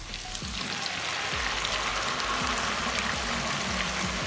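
Boiled noodles dusted with maida (flour) dropped by hand into hot oil in a kadhai, frying with a loud, steady sizzle and crackle. The sizzle swells within the first second as the oil bubbles up around them.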